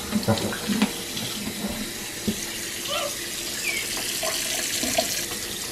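Kitchen faucet running steadily into a stainless steel sink, with irregular splashing as a wet capuchin monkey is scrubbed under the stream.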